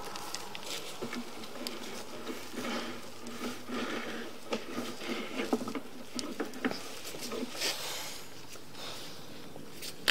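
Irregular clicking and tapping as a drain inspection camera's push cable is worked forward against an obstruction in the pipe, over a steady low hum from the camera equipment.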